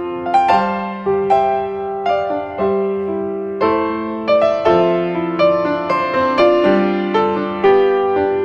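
Background piano music: slow single notes and chords, each struck and left to fade.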